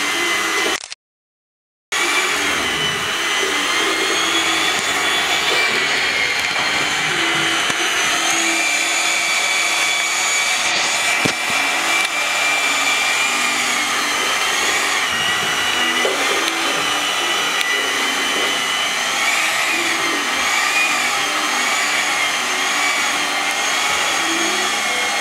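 Electric hand mixer running, its beaters whirring through batter in a plastic bowl: a steady whine whose pitch wavers slightly as the load on the beaters changes. It cuts out for about a second shortly after the start, then runs on.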